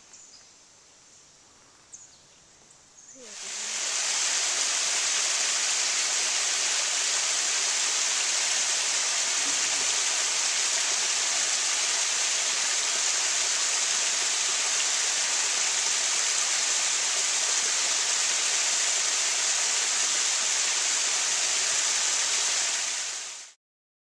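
Small waterfall spilling over rock ledges into a shallow pool: a steady, loud rush of splashing water. It comes in a few seconds in, after a quiet stretch with a few faint clicks, and cuts off suddenly near the end.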